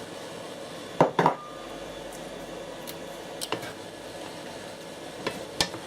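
Kitchenware knocking and clinking: two sharp knocks about a second in, then a few lighter clicks, over a low steady background hiss.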